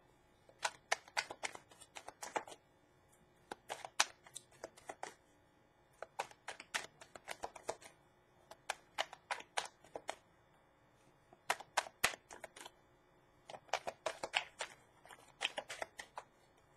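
A tarot deck being shuffled by hand: runs of quick, soft clicking flicks of the cards, in about six spells separated by short pauses.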